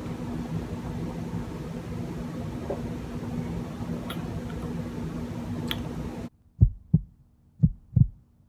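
Room tone with a steady low hum, with a faint tick or two. About six seconds in it cuts to silence and deep thumps in pairs like a heartbeat, each dropping in pitch.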